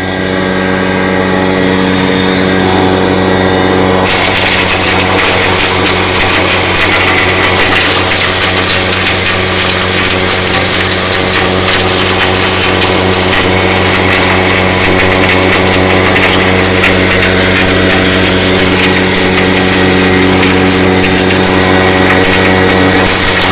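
Corn grinder running steadily. About four seconds in, a loud rushing grind joins the motor hum as corn is fed in and milled into animal feed, and it carries on without a break.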